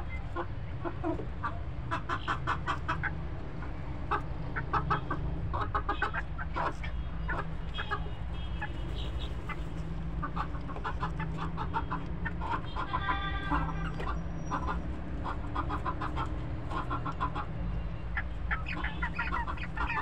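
A flock of domestic chickens clucking, with many short calls throughout and one longer drawn-out call about 13 seconds in, over a steady low rumble.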